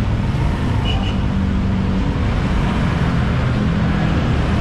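Motorcycle engine running at low speed, a steady low hum over street traffic noise.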